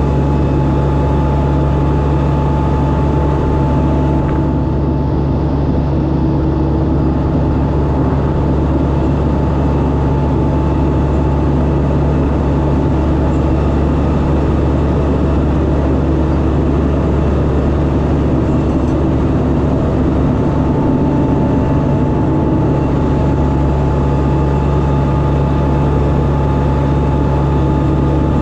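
Heavy truck engine droning steadily at a constant cruising speed, with tyre and road noise underneath.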